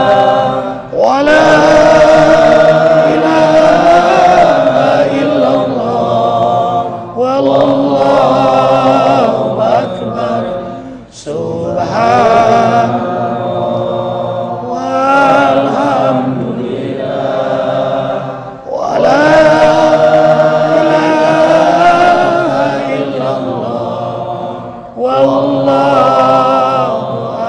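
A group of voices chanting an Islamic devotional melody (dzikir) in unison, in long drawn-out phrases that each swell and then fade before the next begins.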